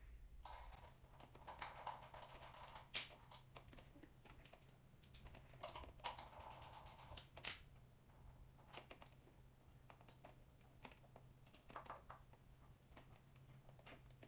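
Faint clicks and metallic clinks of a 12 mm wrench on the brake caliper bolts as the front caliper of a Honda CBX 250 Twister is unbolted and taken off. The clicks come in short quick runs, with a few sharper single knocks, the loudest about 3 s and 7.5 s in.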